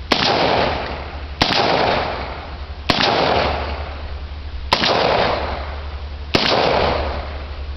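Five shots from a Rossi revolver, fired one at a time at uneven intervals of about a second and a half, each report trailing off over about a second.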